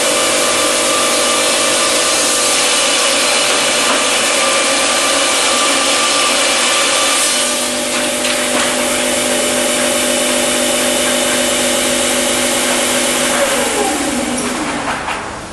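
Saw unit of a PRINZ PC120 automatic package cross-cutting line sawing through a stacked package of lumber, a loud steady machine noise with a steady whine. A little past halfway the sound eases and its pitch shifts. Near the end the motor's tone falls and the noise dies away as the saw runs down.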